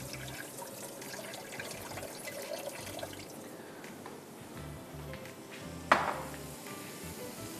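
Water running and splashing as a bowl of washed rice is drained at a sink, under soft background music. One sharp knock about six seconds in is the loudest sound.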